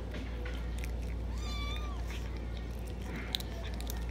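A domestic cat meows once, about a second and a half in: a short call that rises slightly and then falls. Scattered faint clicks and a steady low hum run underneath.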